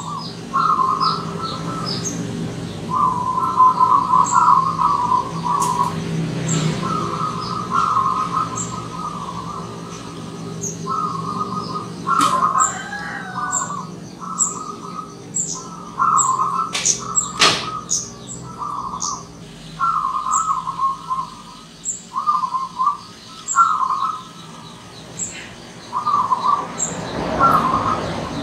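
Zebra dove (perkutut) singing its rolling, staccato coo in repeated short phrases with brief gaps between them. A thin high chirp repeats about once a second behind the song.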